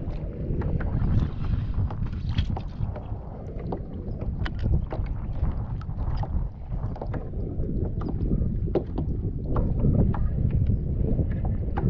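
Wind rumbling on the microphone over water lapping against a kayak, with scattered light clicks and taps of fishing gear being handled.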